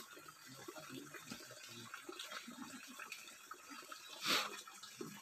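Stream water running steadily, with a short louder rushing burst about four seconds in.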